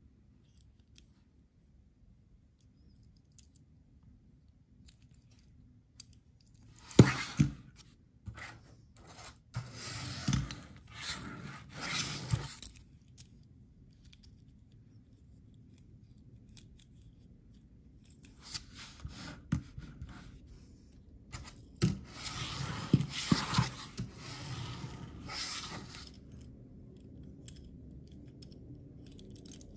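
Small toy cars being handled in the fingers: quiet at first, then two spells of sharp clicks and scrapes as the cars are turned over, set down and picked up, with quieter rubbing in between.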